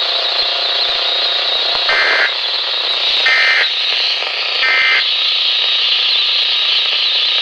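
NOAA Weather Radio receiver playing steady static hiss, broken by three short warbling digital data bursts about 1.3 seconds apart. These are the SAME end-of-message bursts that close the weekly test broadcast.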